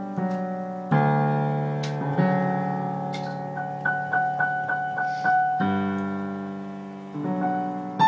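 Piano playing a minuet: struck chords that die away between changes, with a run of quick repeated high notes, about four a second, in the middle.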